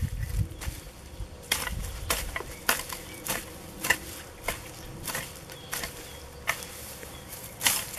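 Blade of a Malý Sokol flat-cutter hoe chopping through turf, weed roots and soil, a quick series of sharp crunching strikes roughly one to two a second.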